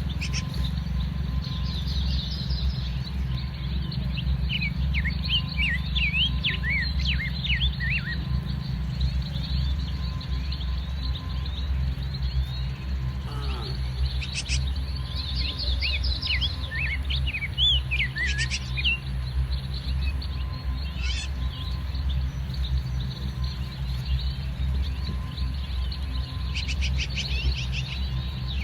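Small birds chirping in scattered flurries of quick, high notes over a steady low rumble.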